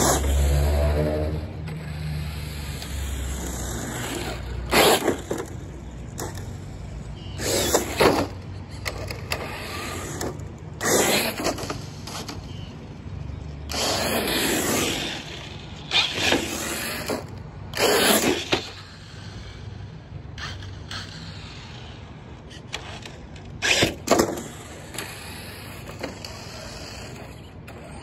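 Brushless-motor Traxxas TRX-4 RC truck being driven in short throttle bursts on pavement: about seven brief rushes of motor whine and tyre noise a few seconds apart over a steady low rumble.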